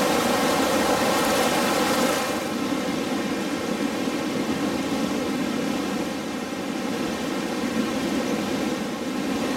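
Steady rush of a fast-flowing mountain river. It is bright and hissy for the first two seconds, then duller and a little quieter.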